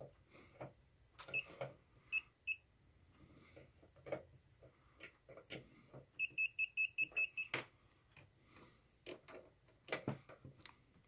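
Kaiweets ST120 pen multimeter beeping in live-wire-detect mode as it is held near live mains wiring: a few short high beeps, then a quick run of about eight beeps near the middle. Light handling clicks and knocks around them.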